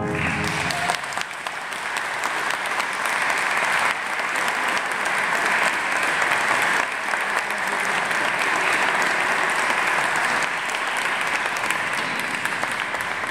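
Audience applauding steadily after a wind band concert piece, with the tail of the band's final chord fading away in the first moment.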